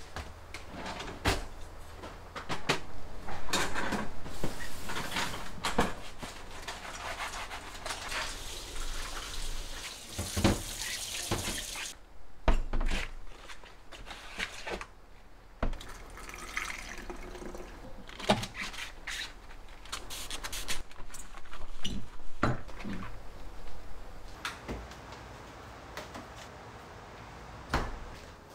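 Kitchen sink tap running and splashing, with dishes clinking; the water shuts off abruptly about twelve seconds in. After that come scattered clinks and knocks of things being handled on the counter.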